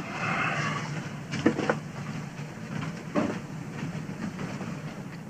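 A few footsteps on a hard floor, single knocks about a second and a half in and again past three seconds, over a low steady hum. A short rustling scrape comes at the start.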